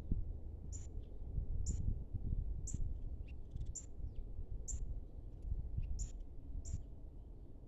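A small bird giving short, high chip notes about once a second, with a few fainter lower notes between them, over a steady low rumble.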